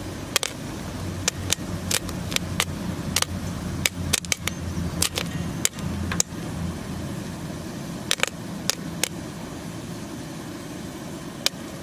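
Popcorn kernels popping in a metal pan: sharp, scattered pops, about two a second on average and bunched in a couple of quick flurries, over a steady low hum.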